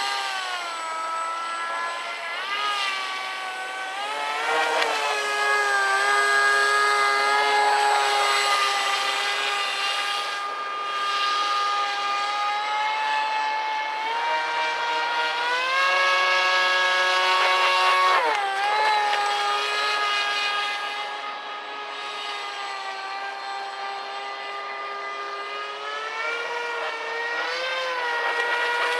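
Aquacraft Cajun Commander RC airboat's motor and air propeller running with a steady whine, its pitch rising and falling again and again as the throttle is worked, with a sharp drop about two-thirds of the way through.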